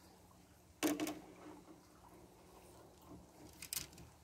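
A brief splash of water about a second in, as a hand plunges in to grab a crayfish. A few faint knocks follow near the end.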